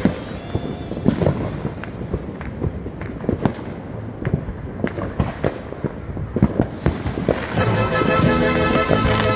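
Fireworks going off in irregular bangs and crackling pops, one after another. Background music comes in near the end.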